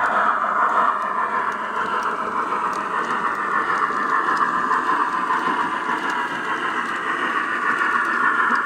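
H0-scale model steam locomotive and its train running on the track: a steady mechanical whirr of the motor and wheels rolling on the rails, with a few faint clicks.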